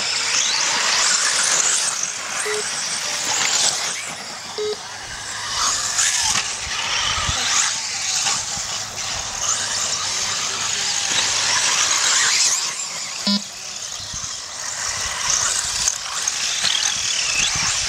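Several radio-controlled off-road cars racing on a dirt track: their motors whine up and down in pitch as they accelerate and pass, over a steady hiss of tyres on loose dirt.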